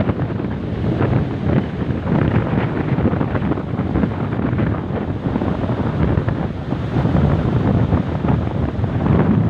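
Ocean surf washing in steadily under heavy wind buffeting the microphone, a continuous low rumbling rush.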